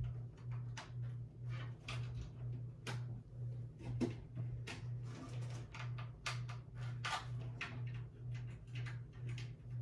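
Scattered clicks and rustles of things being handled, over a low hum that pulses steadily about two and a half times a second. The loudest click comes about four seconds in.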